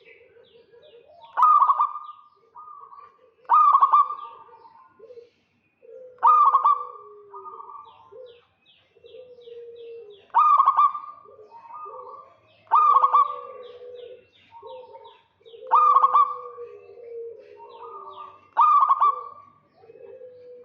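Zebra doves (perkutut) cooing: a loud call phrase repeats seven times, about every two to three seconds, with softer, rapid stuttering coos lower in pitch between the phrases.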